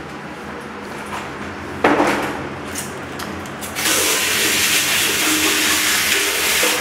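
Water running from a bathroom sink tap: it comes on suddenly about two seconds in, then turns into a much louder, even hiss from about four seconds in until it drops away at the end.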